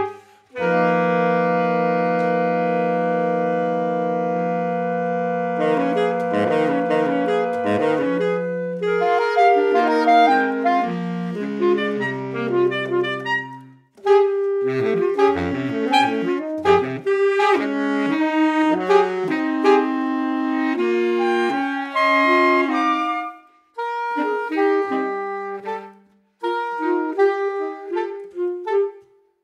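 Saxophone quartet of soprano, alto, tenor and baritone saxophones playing contemporary chamber music. A long held chord opens it, then it breaks into quick detached notes, with a brief silence about halfway through and short pauses near the end.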